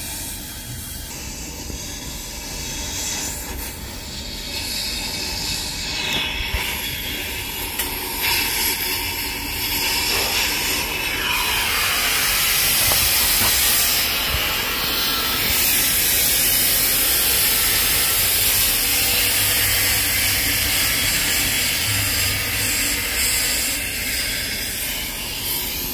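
Oxy-acetylene cutting torch hissing as its flame burns out and enlarges the hole in a motorcycle muffler's internal baffle. The hiss is steady, grows louder a little under halfway through, then holds.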